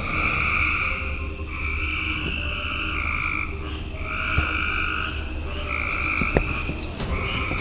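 Frogs calling in a chorus: a run of trilling calls, each about a second long, following one another with short gaps. A few sharp clicks come in the second half.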